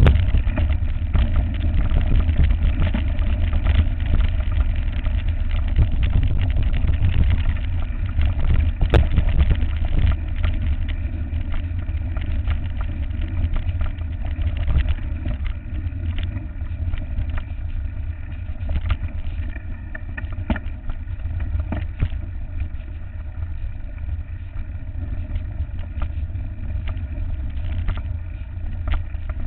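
Wind buffeting the microphone of a handlebar-mounted camera as a deep rumble, over the rattling and knocking of a mountain bike riding a bumpy dirt trail. The knocks come thickest in the first half.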